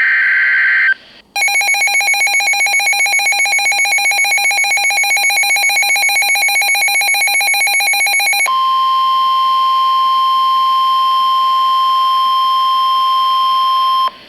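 The tail of a NOAA Weather Radio SAME data burst screeches for about a second. After a short gap, a weather radio receiver's rapidly pulsing alert beep sounds for about seven seconds. Then comes the steady 1050 Hz NWS warning alarm tone for about five and a half seconds, the signal that a warning is being issued.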